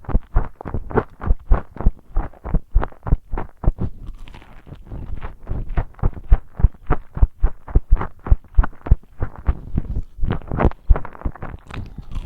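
Close-up chewing of crispy fried chicken nuggets and fries: a steady rhythm of crunchy chews, about three a second, that softens briefly about four seconds in before picking up again.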